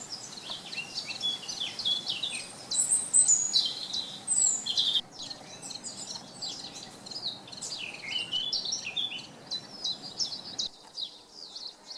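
Woodland songbirds singing together, a busy overlapping chorus of quick chirps and trills, over a steady background hiss that drops away near the end.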